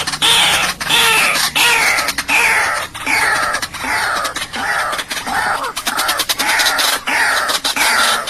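White-breasted waterhen calling: a fast run of loud, harsh notes, each sliding down in pitch, repeated about one and a half times a second.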